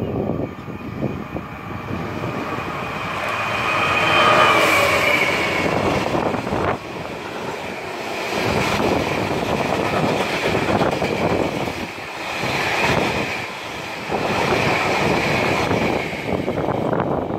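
A DB Cargo Class 66 diesel locomotive, with a two-stroke V12 engine, passes hauling a train of ballast wagons. The sound builds to its loudest about four seconds in as the locomotive goes by. It is followed by the steady rumble and clatter of the wagon wheels on the rails, with a high steady squeal over the top.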